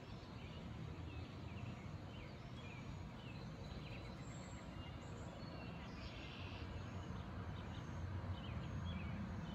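Rural outdoor ambience: scattered short chirps of songbirds over a steady low rumble.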